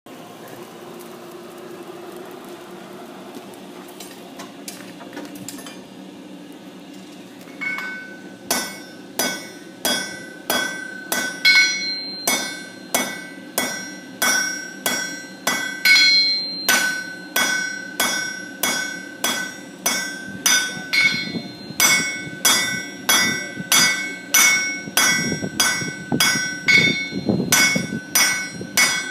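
Blacksmith's hammer striking hot iron on an anvil: a steady run of blows, about one and a half a second, each with a bright ring from the anvil. The hammering starts about seven seconds in, after a steady low noise.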